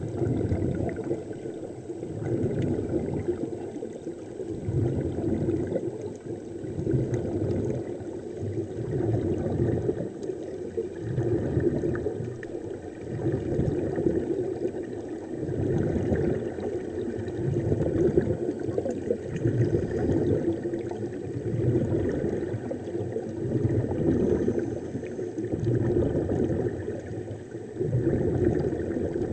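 Muffled underwater rushing and bubbling picked up by a submerged camera, swelling and fading about every two seconds.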